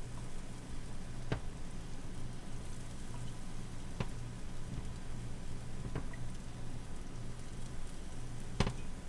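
Pancake frying in hot grease in a pan: a steady crackling sizzle over a low hum, broken by four sharp ticks, the loudest near the end.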